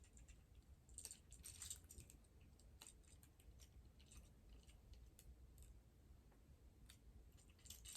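Near silence with a few faint, scattered clicks of plastic action-figure parts being handled and fitted together, most of them in the first three seconds.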